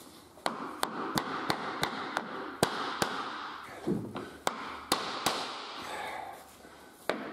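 Hammer striking a flooring knocking block to drive laminate boards along and snap their joints shut: a run of sharp taps, about two to three a second, with short pauses between the runs.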